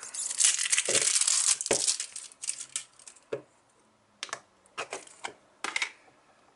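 Plastic shrink-wrap crinkling and tearing as it is stripped off a small putty tin, loudest for the first two seconds. A scatter of sharp clicks follows as the tin's plastic lid is pried off.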